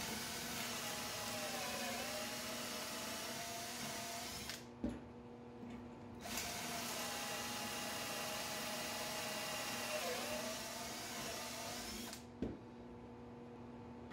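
Cordless drill boring pocket holes through a pocket-hole jig into a wooden board, in two runs, the second the longer. The motor's pitch sags briefly as the stepped bit bites, and there is a short click in the pause between the runs and another after the second.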